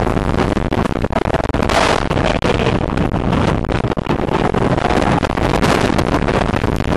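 Wind rushing over the microphone, heard on board a wooden roller coaster train with the train rumbling and clattering along the track at speed. A stronger gust comes about two seconds in.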